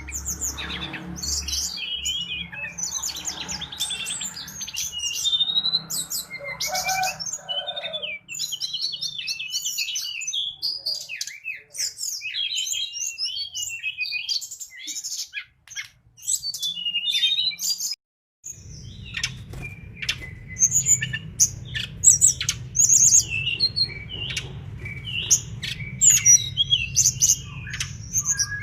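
Mangrove blue flycatcher (tledekan bakau) singing a long, fast, varied twittering song of chirps and trills, broken by a brief silence about two-thirds of the way in, after which a low hum sits under the song.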